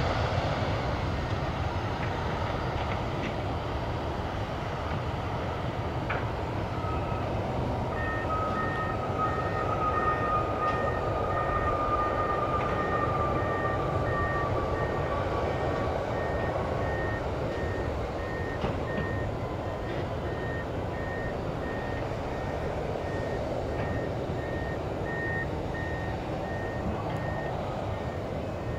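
Airbus A320 jet engines on the landing rollout, a steady roar that eases as the airliner slows, with a whine that falls in pitch for several seconds. From about eight seconds in, a high beeping repeats about one and a half times a second, like a vehicle's reversing alarm.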